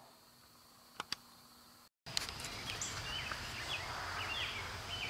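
Near silence with two faint clicks, then, after a sudden cut, open-air ambience: repeated short, high chirps of small birds over a steady background hiss.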